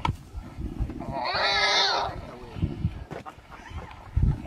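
A wild pig, held by a lion, squealing in distress: one harsh, high cry about a second long, over low growling. A heavy thump comes near the end.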